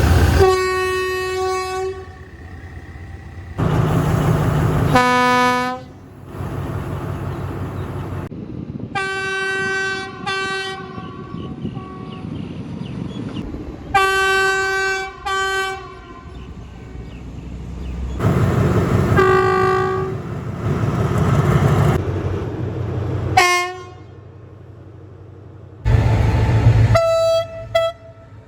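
Diesel locomotive horns of Thai trains sounding in a string of separate clips: a long blast, then short and paired blasts, each cut off abruptly, over the low rumble of trains running.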